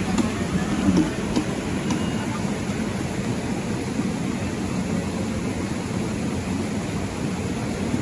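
Waterfall pouring, a steady, deep rushing noise of falling water.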